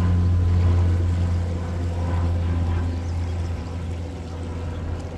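A low engine drone, steady in pitch, slowly fading away.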